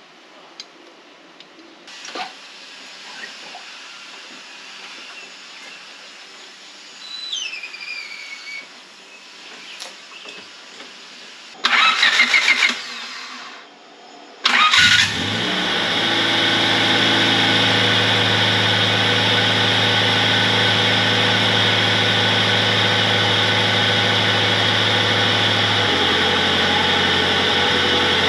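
Faint clicks and handling sounds, then the 1997 Honda Civic's four-cylinder D15B VTEC engine cranks for about two seconds. After a short pause it cranks again, catches with a brief flare of revs and settles into a steady idle. This is the first start after an oil cooler was fitted and its lines pre-filled with oil.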